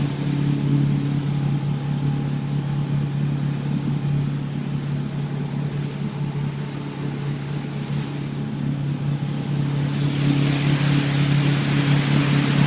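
Motorboat engine running at a steady drone. About ten seconds in, a hissing rush of wind and water grows louder over it.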